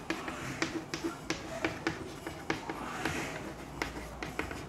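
Chalk writing on a blackboard: a quick, irregular run of sharp taps and clicks as the chalk strikes the board for each letter, with a brief scrape about three seconds in.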